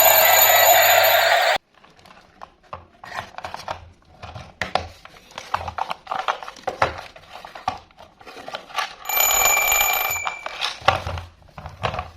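Music stops abruptly about a second and a half in. It is followed by scattered clicks and knocks, and then a steady, high electronic tone that sounds like an alarm beep and lasts about two seconds.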